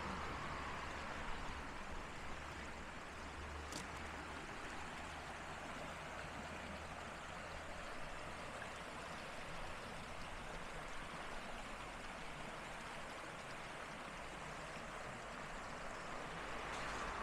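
Seasonal stream of rainwater flowing steadily down a valley bed, with a faint low rumble in the first half.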